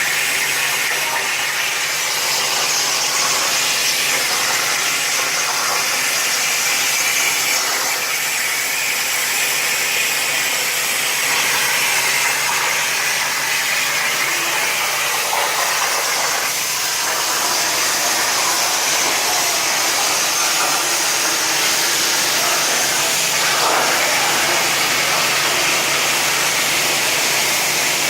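CNC plasma cutter torch cutting metal: a steady, loud hiss of the plasma arc and its compressed-air flow.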